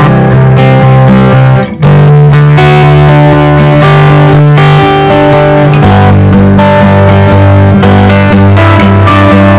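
Background music led by guitar, with a steady bass line and a brief break about two seconds in.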